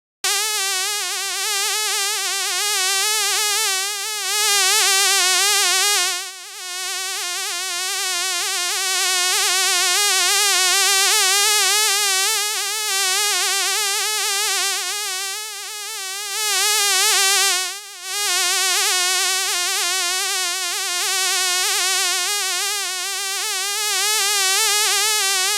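Fly buzzing: a continuous high buzz whose pitch wavers quickly, starting suddenly just after the start and briefly dropping in loudness twice.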